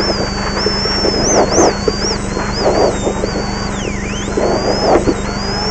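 Rally car heard from inside the cabin, braking and downshifting from third to second for a tight right-hand corner on a dirt road. Engine and drivetrain noise with a high whine that dips in pitch about four seconds in and then climbs again as the car pulls away, over gravel and road rumble.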